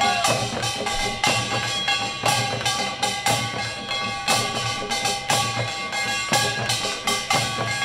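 Korean pungmul percussion troupe playing live: small hand drums, janggu hourglass drums and buk barrel drums in a driving rhythm, with a strong accent about once a second over steady ringing tones.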